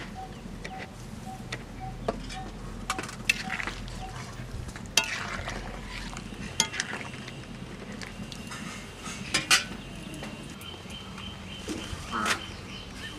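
A steel ladle stirring a simmering vegetable curry in an aluminium wok, with sharp clinks and knocks each time it strikes the side of the pan.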